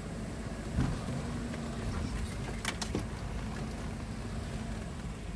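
BMW X5 E53 running with a steady low hum, with a few irregular knocks: a heavy low thump about a second in and a quick cluster of sharper knocks near the middle. This is the knock ('стук') that the owner is recording.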